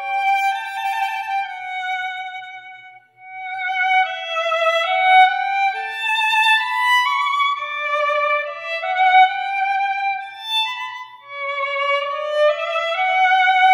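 Solo violin playing a slow melody, one note at a time in phrases that climb step by step, with a brief pause about three seconds in.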